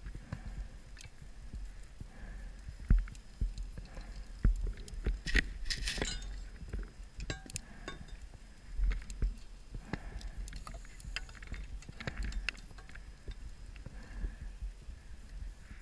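Underwater sound in a wreck, heard through a diver's camera housing: scattered sharp clinks and knocks of metal and gear, over a low rumble. About six seconds in there is a hissing burst, typical of a scuba regulator's exhaust bubbles.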